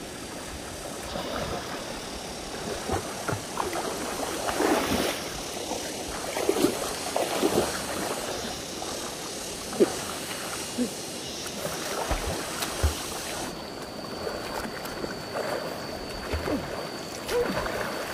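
Stream water running, with irregular splashes and gurgles.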